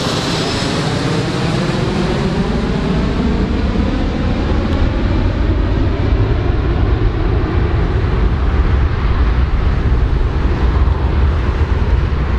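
Four-engine jet airliner climbing away, its engines running at takeoff power: a steady deep rumble under a rushing jet noise, with a high whine that drops in pitch in the first second and slowly sweeping tones as the plane recedes.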